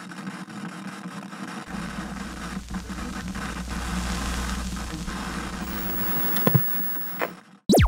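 Static-like hissing noise used as sound design, with a low rumble joining about two seconds in and fading out near the end. A couple of short sharp hits follow, then a brief loud swept sound just at the close.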